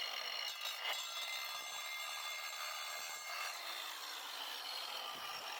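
DeWalt DWE490 9-inch angle grinder with a diamond disc cutting tile: a steady, even grinding hiss with a faint whine.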